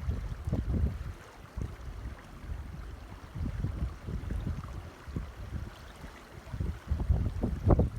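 Creek water rushing and gurgling in an even wash, with irregular low rumbling surges that grow stronger near the end.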